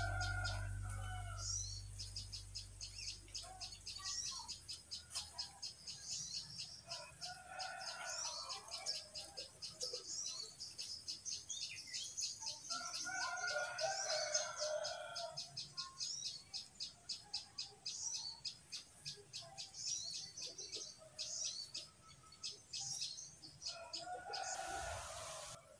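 Outdoor wildlife ambience: rapid, high, repeated chirping that runs on almost without a break. Lower, louder calls come in three times, each lasting a second or two, and a faint music bed fades out in the first few seconds.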